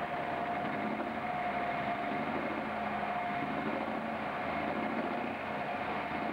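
Engine of a DAF-cabbed "Black out" pulling truck idling steadily, with a steady whine over the running.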